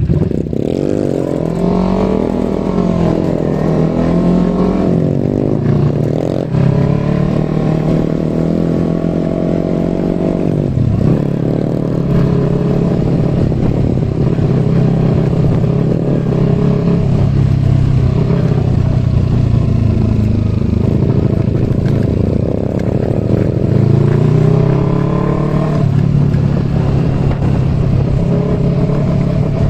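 Small Kawasaki Eliminator motorcycle engine running on the road, its pitch rising and falling as it accelerates and changes gear several times.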